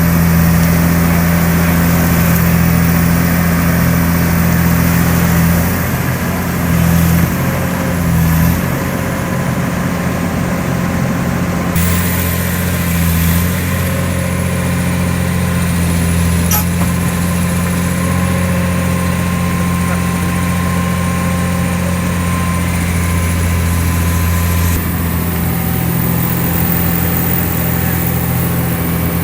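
Komatsu long-reach excavator's diesel engine running steadily, with a few brief swells in level about 6 to 9 seconds in.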